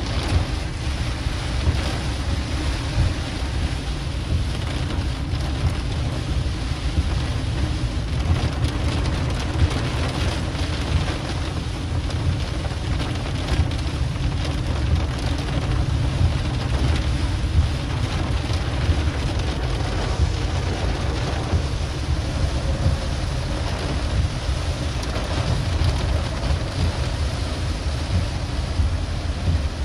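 Heavy rain pattering on a moving car's windshield and roof, heard from inside the car, over a steady low rumble of the car on the wet road.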